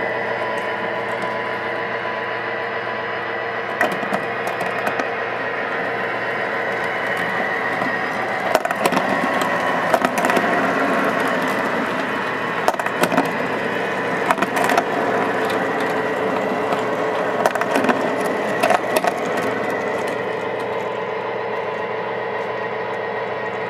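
O-gauge model train cars rolling past on three-rail track: a steady metallic rumble with a faint whine, broken by scattered sharp clicks between about 4 and 19 seconds in.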